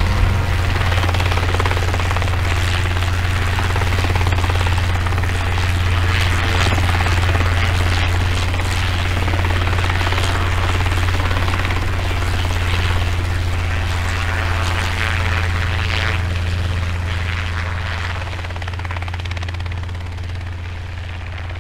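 Steady rotor and motor drone of a flying aircraft, with a strong low hum under a wide whirring hiss, fading gradually over the last few seconds.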